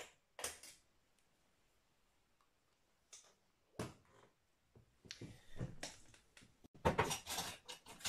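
Handling noises from the opened all-in-one PC's metal shield and parts: a few separate clicks and knocks, then a busier run of scraping and rattling from about five seconds in, loudest about seven seconds in.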